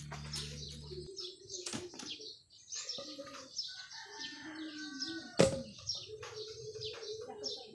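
Small birds chirping busily with many short, high calls, and a single sharp knock about five seconds in.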